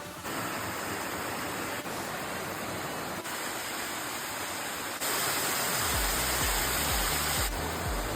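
Waterfall: the steady rush of falling water, full and hissy. It changes level abruptly several times and is loudest and brightest from about five seconds in to about seven and a half.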